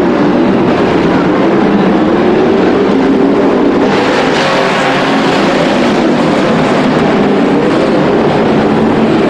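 A pack of dirt-track race trucks running laps at speed, several engines droning together, growing louder and brighter about four seconds in as the field comes down the stretch.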